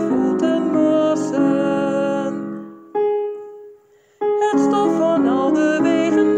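Hymn music led by piano, several notes sounding together. A phrase dies away about two and a half seconds in, a single further note sounds and fades, and after a brief hush the music starts again a little after four seconds.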